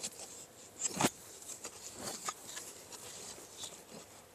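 A wooden-handled digging tool scraping and knocking into dry, crumbly sandy earth to break open a burrow. There are a few scattered scrapes and knocks, the sharpest about a second in, with soil trickling between them.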